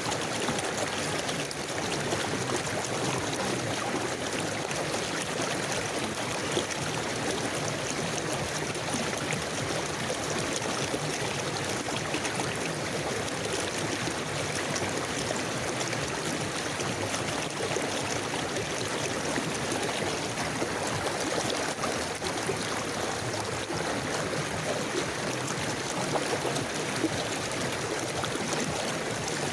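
A river or stream flowing steadily, with a continuous rushing and fine babbling of water over stones.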